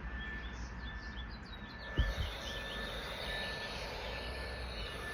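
Outdoor ambience with small birds chirping in many quick short notes over a steady faint hiss, and a single low thump about two seconds in.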